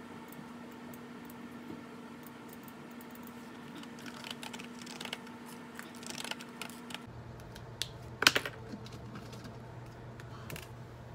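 Computer keyboard being typed on: scattered keystrokes over a low steady hum, with a short run of louder clicks about eight seconds in.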